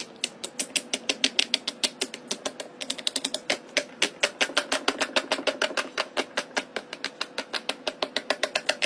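Rapid run of sharp pops, about seven a second, as a sheet of bubbles is popped by hand one after another as fast as possible, with a faint steady hum underneath.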